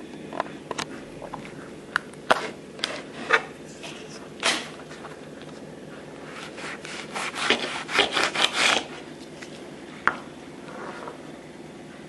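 A knife cutting a small chili pepper in half on a cutting board: scattered taps and scrapes, then a quick run of sawing strokes about seven to nine seconds in.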